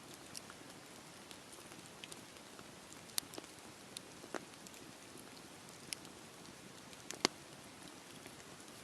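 Campfire burning with a steady low hiss of flames and scattered sharp crackles and pops of burning wood, two louder pops about three seconds in and about seven seconds in.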